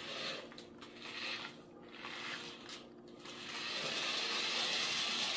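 Adventure Force mini RC truck's small battery-powered electric motor and gearbox whirring as it drives across a laminate floor, in short spurts of throttle at first, then running steadily for the last couple of seconds.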